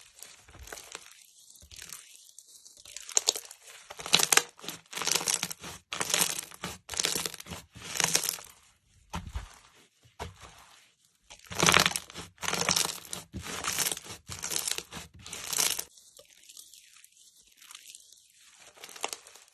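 Slime being mixed and stretched by hand, with sticky crackling and popping. It comes in two runs of several seconds each, with quieter squishing before, between and after.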